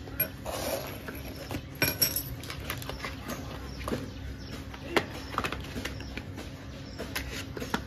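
Scattered light taps and clicks of a smartphone and its white paperboard retail box being handled, the box lid lifted off, over a faint steady hum.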